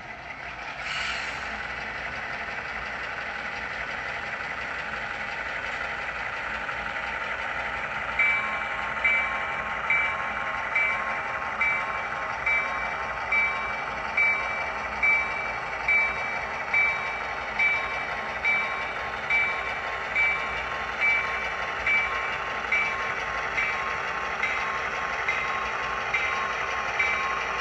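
HO scale model diesel locomotive's sound system playing a steady engine drone, with a short burst of noise about a second in. From about eight seconds in, a bell rings evenly, a little more than once a second.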